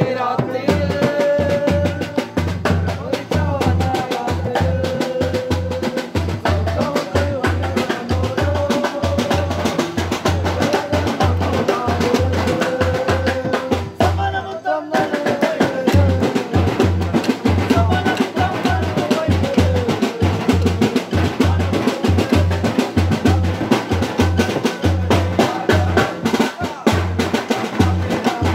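Christmas carol music: a melody carried over a steady, quick drum beat, which breaks off briefly about halfway through and then starts again.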